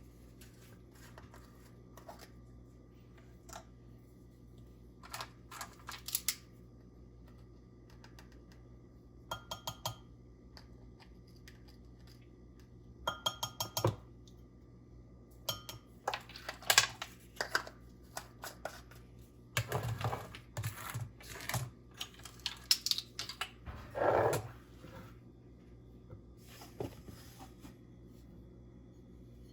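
Intermittent kitchen handling sounds of utensils and containers: light taps and clicks, two short ringing clinks, and a busier run of knocks and rustling about two-thirds of the way through, over a low steady hum.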